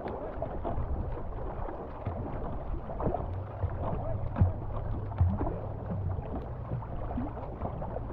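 Paddles dipping and pulling through river water alongside a tandem canoe, with irregular splashes and water rushing past the hull, and wind on the microphone.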